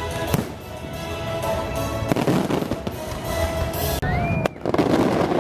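Fireworks display bursting in sharp bangs over music playing, with a short rising whistle about four seconds in.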